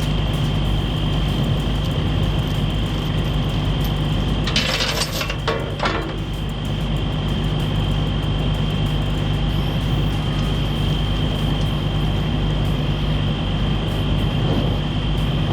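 2001 Western Star truck's diesel engine running with a steady low drone and a thin, steady high-pitched tone over it; a short hissing burst comes about four and a half seconds in.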